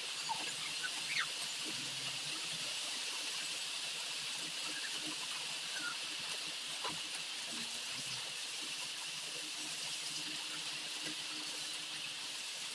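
Steady hiss from a large aluminium pot of broth at a steaming boil, with a few faint knocks and clinks from a ladle in the pot, one a little clearer about seven seconds in.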